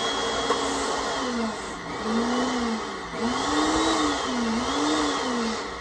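Black+Decker PowerCrush blender running at full speed through a smoothie, its motor pitch rising and falling about once a second as the contents churn against the blades.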